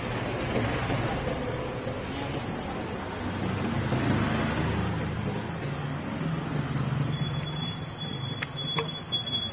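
Steady rumble of road traffic, with a motor vehicle's engine running close by; a couple of short sharp knocks near the end.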